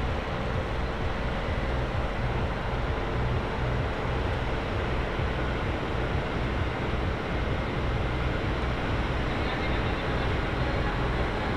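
Steady low rumble and hiss of outdoor noise, with no clear voices or music standing out.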